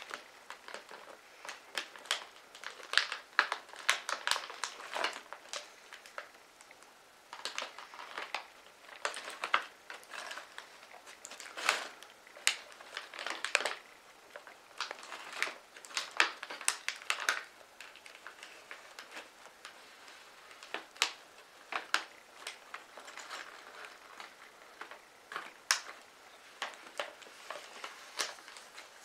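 Plastic chip bag crinkling and crackling in irregular clusters of small crackles as it is slowly handled.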